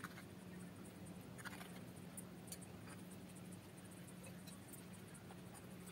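Near silence: faint room tone with a steady low hum and a few faint, short ticks.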